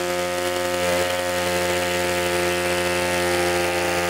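Small handheld reciprocating body saw running steadily at full speed as its short blade cuts through the car's steel wing panel.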